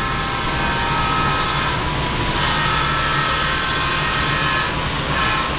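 Model train running on the layout track: a steady mechanical rumble with a constant high whine from the wheels and motor.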